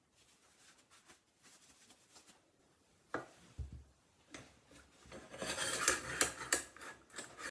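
Gloved hands rustling, a single knock about three seconds in, then loud, uneven scraping and rubbing from about five seconds on as the lathe's tool rest is slid and set against the bed; the lathe is not running.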